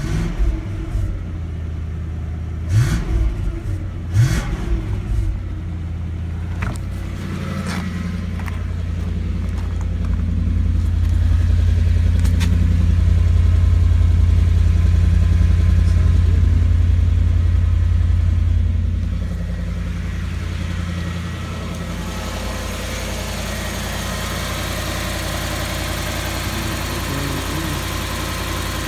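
Lexus SC400's V8 engine running, with its ECU freshly repaired. The engine note rises and holds louder for several seconds in the middle, then settles back to a steady idle. A few sharp knocks sound early on.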